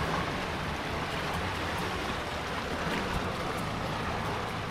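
Steady rushing of wind and water around a sailing boat under way at sea.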